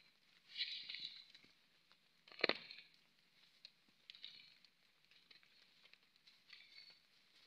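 Bare hand digging into and breaking apart a termite mound's hard earth: faint crumbling and scraping, with one sharp crunch about two and a half seconds in. Short high-pitched chirps come and go three times.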